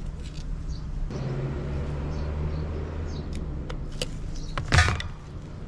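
Small metal clicks and scrapes of a screwdriver working at a stuck part on a small two-stroke engine pump's carburetor, with one sharp clack about four to five seconds in. A steady low motor hum runs underneath through the middle.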